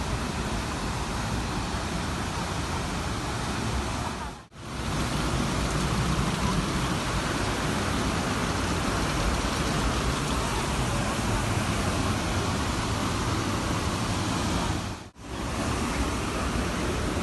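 Steady rush of a waterfall, a dense roar of falling water. It drops out briefly twice, about four and a half seconds in and again about fifteen seconds in.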